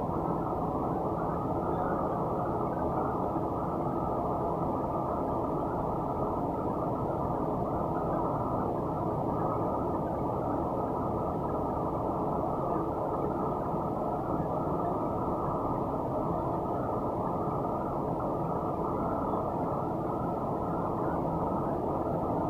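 Steady, muffled low mechanical rumble, like a motor running, unchanging throughout.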